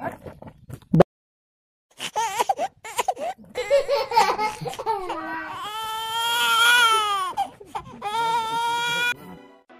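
High-pitched crying: wavering wails broken by sobbing catches, the longest drawn out over about two seconds, rising and then falling. A second of dead silence comes just before the crying starts.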